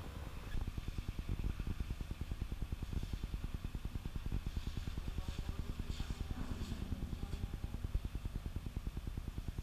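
Low mechanical rumble, pulsing evenly about ten times a second, with a few faint higher clicks and voices around the middle.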